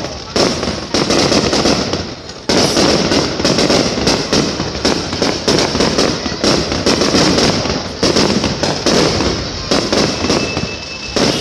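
Aerial fireworks display: a rapid, almost continuous barrage of shells bursting and crackling overhead. A short, steady high tone sounds near the end.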